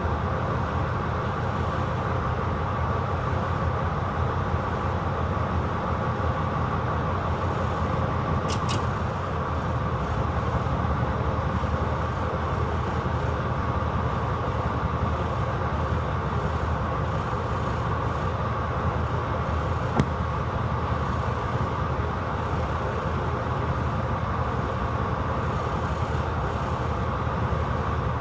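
Diesel shunting locomotive's engine running steadily at low power, heard from beside its engine hood, with a steady low rumble and a constant mid-pitched drone. A brief high squeal about eight seconds in and a single sharp click about twenty seconds in.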